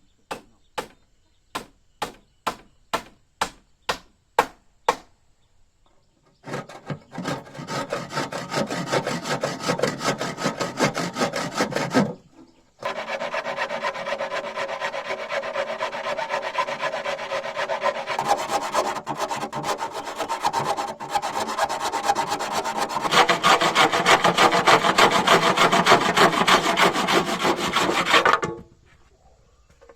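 About ten sharp knocks on wood, roughly two a second, then a tool cutting through wood with a fast, steady rasping scrape. The scraping stops briefly about twelve seconds in, resumes, and cuts off shortly before the end.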